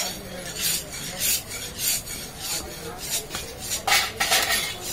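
Butcher's cleaver scraping and cutting on a wooden log chopping block in short, irregular strokes about two a second, with a longer, louder scrape about four seconds in.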